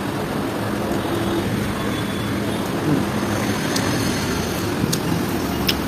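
Steady indoor background noise of a restaurant: a continuous hum with faint distant voices under it, and a few light clicks near the end.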